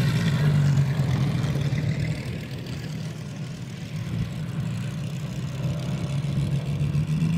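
Moki five-cylinder radial engines of large radio-controlled Wilga model planes running together with a steady propeller drone. The sound is loudest at the start as one plane runs past on its takeoff, fades as they climb away, and grows again near the end.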